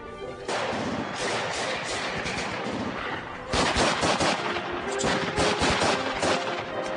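Rapid, overlapping gunfire from blank-firing rifles and machine guns, starting about half a second in, with heavier bursts around the middle.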